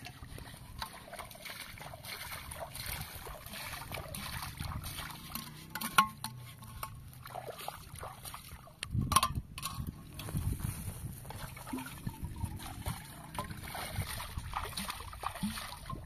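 Shallow ditch water trickling and splashing as a plastic bottle and a metal kettle are dipped in and filled, with a few sharp knocks about six and nine seconds in.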